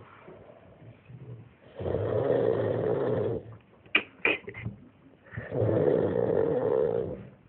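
A person snoring: two long snores about three and a half seconds apart, with two short sharp clicks between them.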